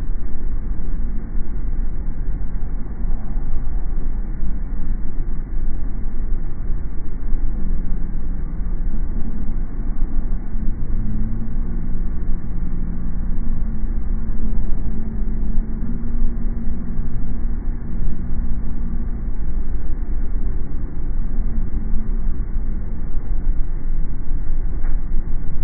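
A car driving, heard as a steady low rumble of road and engine noise with a humming drone that holds for a few seconds at a time and steps up and down in pitch.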